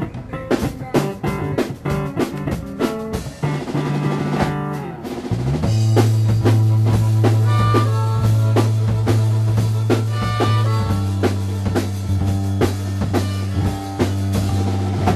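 Drum kit and bass guitar playing an improvised funk-rock groove, with rimshots and bass drum on a steady beat. About five seconds in, the bass settles into one long held low note under the drumming.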